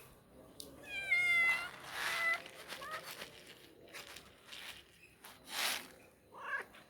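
Stray cat meowing for food: one long meow about a second in, then shorter meows, with a short noisy burst near the end.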